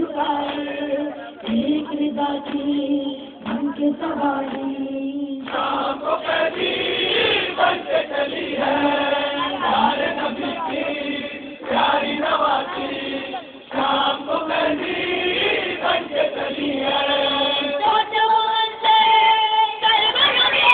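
Live Urdu noha recitation: male reciters sing a mournful lament into a microphone, with several voices singing together in long held, wavering lines.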